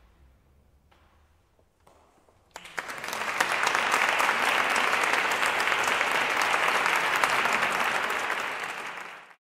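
An audience applauding: after a couple of seconds of near quiet, dense clapping breaks out and holds steady, then stops abruptly near the end.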